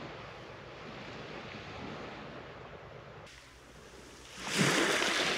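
Sea waves washing on the shore, with one louder wave surging up about four and a half seconds in.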